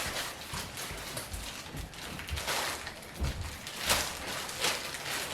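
Handling noise from vacuum cleaner attachments being picked up and moved: a few light knocks and clicks over a soft rustling.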